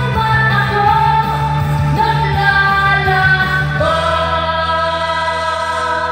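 A singer singing into a handheld microphone over backing music, moving through a short phrase and then holding one long note from about four seconds in.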